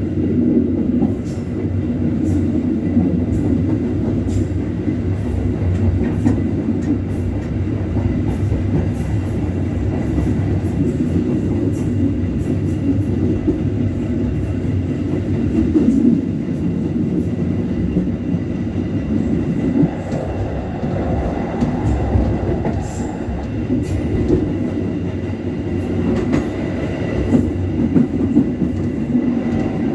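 Commuter train running along the track: a steady low rumble of wheels rolling on rail, with scattered clicks and knocks from the wheels over the rail joints.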